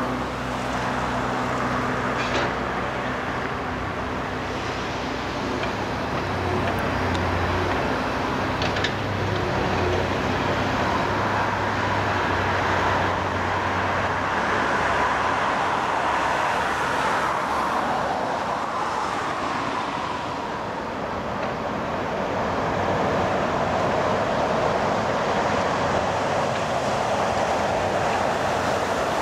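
Komatsu 210 hydraulic excavator's diesel engine running, its low hum dropping away about halfway through, under a steady wash of road traffic.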